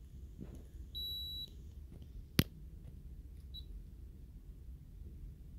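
A 24-hour ambulatory blood pressure monitor gives a single high beep lasting about half a second, about a second in. A sharp click follows about a second later, then a short faint blip.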